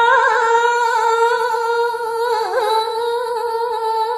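Balinese geguritan singing: a single voice holding a long, steady sung note with small wavering ornaments, and about two and a half seconds in it bends and turns before settling on the note again.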